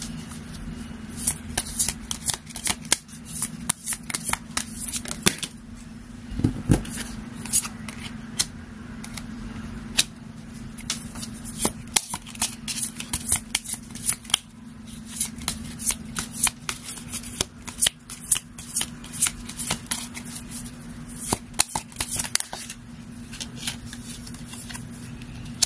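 A tarot deck being shuffled by hand: quick runs of crisp card clicks and flicks, broken by short pauses as cards are drawn and laid on the table.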